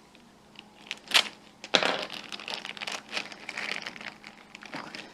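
Plastic packaging rustling and crinkling as a door kit's parts are unpacked, with a sharp crackle about a second in and irregular crinkling after.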